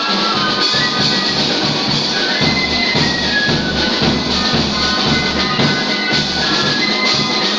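Music with drums: a steady low beat under sustained melody lines.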